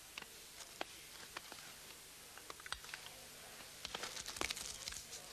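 Faint crinkling and crackling of small folded paper slips being unfolded by hand, scattered light clicks with a denser cluster about four seconds in.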